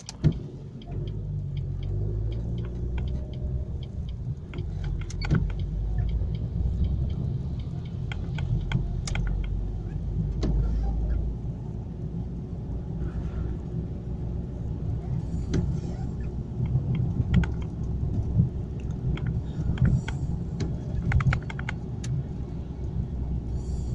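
Low road rumble inside a moving car's cabin, with scattered small clicks and rattles.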